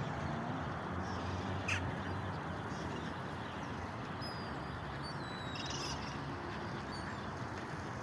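Ducks quacking and other birds calling faintly over a steady outdoor background noise. A brief sharp click comes just under two seconds in.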